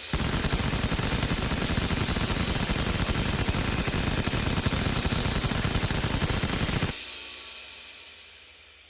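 M61 Vulcan six-barrel rotary cannon firing one continuous burst of about seven seconds, the shots so rapid they merge into a single buzzing roar. It cuts off abruptly, and the spinning barrels wind down with a fading whine.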